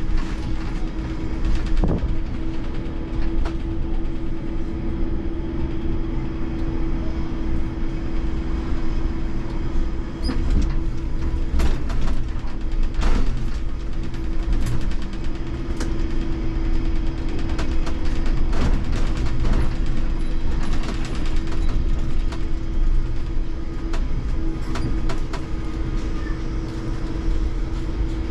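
Inside the cab of a Hess lighTram 19 DC trolleybus on the move: a steady mid-pitched hum over low rumble from the road, with scattered knocks and rattles.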